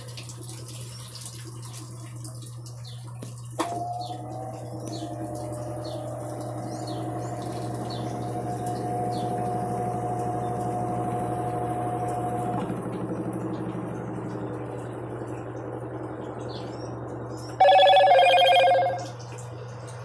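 Mueller Energy 8 kg top-loading washing machine in its spin cycle: a steady low motor hum, joined a few seconds in by a click and a steady whine that holds its pitch and then fades away. Near the end a loud two-note tone sounds for about a second and a half.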